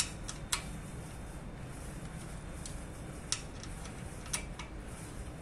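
Allen key clicking against steel hex bolts as the bolts are turned and tightened by hand: several sharp, irregularly spaced clicks over a low, steady hum.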